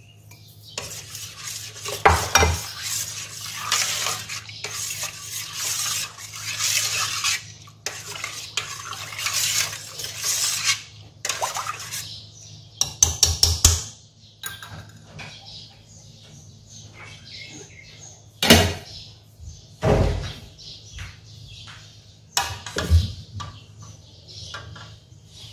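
A metal spoon scrapes white powder out of a ceramic bowl and stirs it into a stainless steel pot of coconut milk, scraping steadily for about ten seconds. A quick run of taps follows, then a few single sharp knocks of metal, over a low steady hum.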